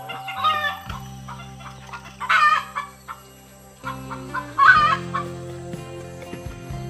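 A chicken calling three times, a short cackling call roughly every two seconds.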